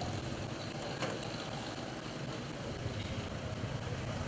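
Street traffic: a steady low engine hum with motorbikes passing, and a single sharp knock about a second in.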